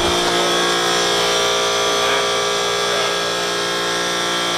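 Steady mechanical drone with a constant high whine, unchanging in pitch.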